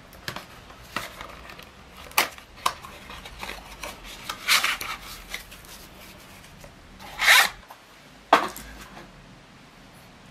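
Unpacking noises: a few sharp taps and knocks of packed pieces handled on a wooden desk, and two short scraping rubs, about halfway and two-thirds of the way through, as an aluminium tube section is slid out of its cardboard sleeve and foam end caps.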